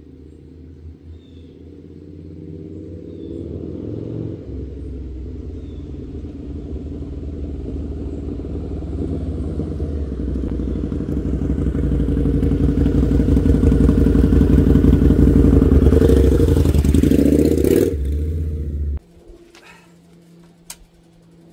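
2002 Harley-Davidson V-Rod's liquid-cooled Revolution V-twin running and growing steadily louder as the motorcycle comes in from a test ride, its pitch rising briefly near the end before the engine is shut off suddenly about 19 seconds in.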